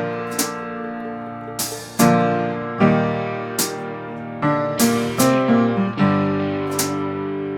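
Background music: keyboard chords changing every second or so, punctuated by sharp bright hits.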